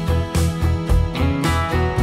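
Background music: a guitar-led track with a steady strummed beat.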